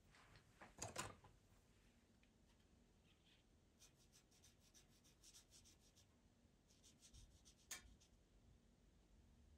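Faint scratching of a pastel pencil on Pastelmat paper, in clusters of short quick strokes, with a brief louder rub about a second in.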